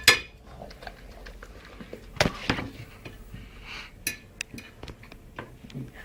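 Scattered clinks and knocks of dishes and cutlery, a sharp clink at the start and a few lighter ones after.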